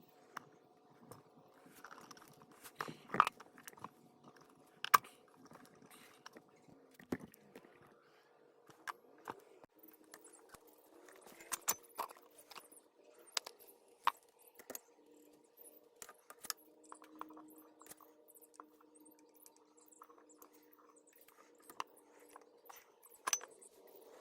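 Scattered light clicks and knocks, a few sharper ones among them, over a faint steady hum.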